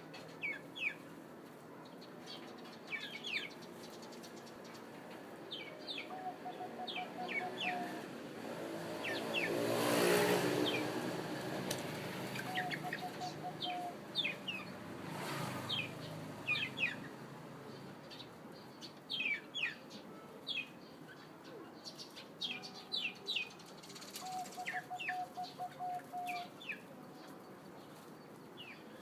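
Zebra dove cooing: about four runs of its rapid coo, each a quick series of short, evenly spaced low notes lasting about a second. Other small birds chirp throughout with quick high notes, and a rushing noise swells and fades about ten seconds in.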